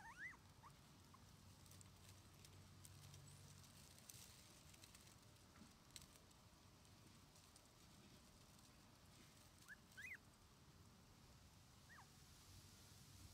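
Faint, short high squeaks and whimpers from a three-week-old Shiba Inu puppy: a few right at the start, a pair about ten seconds in and one more near twelve seconds, with faint scattered ticks between.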